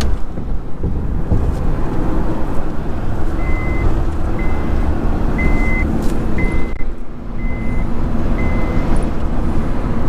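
Steady low road and engine rumble of a moving vehicle. Six short, high electronic beeps about a second apart sound over it, from about three seconds in until near nine seconds.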